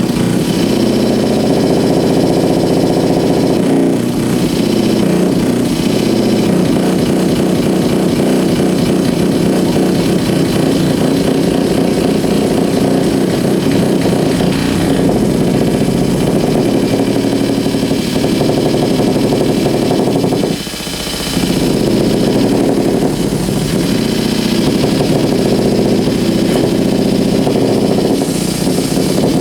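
Amplified electrical interference from dimmed compact fluorescent bulbs, picked up by exposed guitar cables: a loud, dense, rapidly pulsing buzz that shifts in texture, dipping briefly about two-thirds of the way through. The pulsing is the bulbs' flickering when they fail to dim properly, and it is unprocessed.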